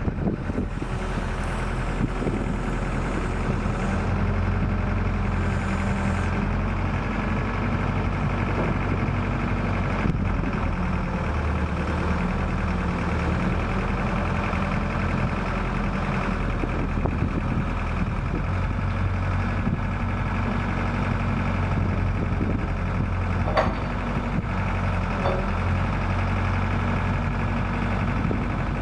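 Atlas 1504M wheeled excavator's diesel engine running steadily while the boom and bucket are worked hydraulically, its low note shifting a little at times as the hydraulics take load.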